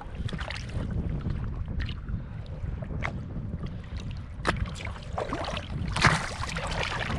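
Wind buffeting the microphone over water lapping against a boat, with scattered small knocks and a louder rush of noise about six seconds in.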